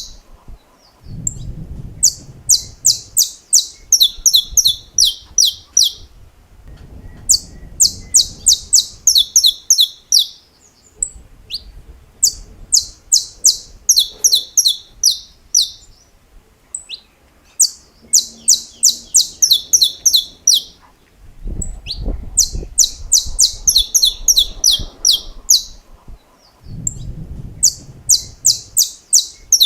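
Saffron finch (canário-da-terra) singing phrases of sharp, rapidly repeated high notes, the 'estalos' prized in contest birds, about three to four notes a second. The phrases last a few seconds each, with short pauses between them, and repeat about six times.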